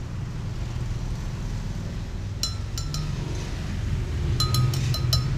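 A metal spoon clinking against a glass blender jar as dragon fruit flesh is scraped off into it: three taps about two and a half seconds in, then a quicker run of about six near the end. A low steady rumble underlies it.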